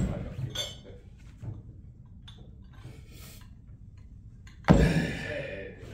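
Metal gym weights clanking down twice: a sharp clank right at the start and a louder one about three-quarters of the way through, each with a short metallic ring. Lighter knocks of equipment come in between.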